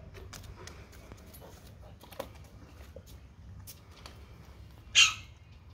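Dog mouthing and chewing a raw salmon head: scattered small clicks and crunches of teeth on the fish head, with one loud, sharp crunch about five seconds in.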